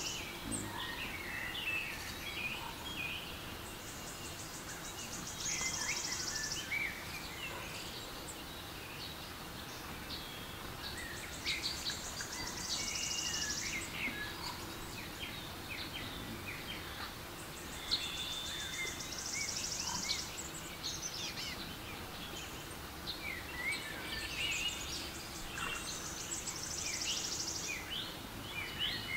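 Recorded forest soundscape from a relaxation app: many birds chirping and singing over a steady background hiss of woodland ambience. A buzzy, high-pitched trill comes back every six seconds or so.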